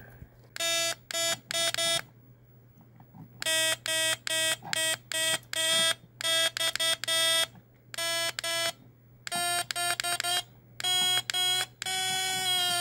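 Homemade NE555 square-wave horn circuit sounding through a small speaker: a buzzy electronic horn tone of about 330 Hz, sounded in quick honks in clusters of two to four with short pauses between. Near the end it is held as one continuous tone.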